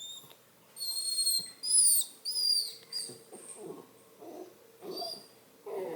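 Redbone coonhound puppy whining: a string of high-pitched whines, several sliding down in pitch, then softer, lower whimpers near the middle and a louder one near the end.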